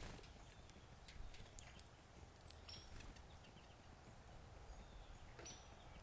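Faint scattered taps and clicks of small birds landing and pecking at seed on a wooden platform feeder, with a few short, high bird calls in the background.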